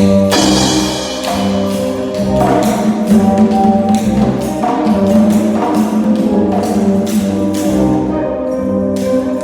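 Instrumental music: held, brass-like chords over evenly spaced tapped percussion strokes keeping a steady beat.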